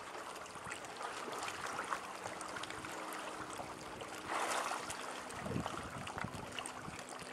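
Sea water lapping and sloshing against rocks, with a brief louder splash a little past halfway.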